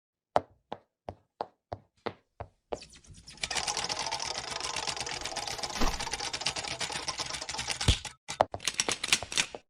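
Single sharp clicks about three a second, then a fast, dense clatter of clicks like typing, with a short break near the end.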